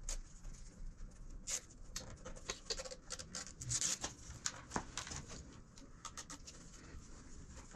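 Soft, irregular crinkling and scratching of the red plastic backing liner being peeled off an LED light strip's 3M adhesive tape as the strip is pressed along the fender bar. It comes as a quick run of small clicks that thins out over the last couple of seconds.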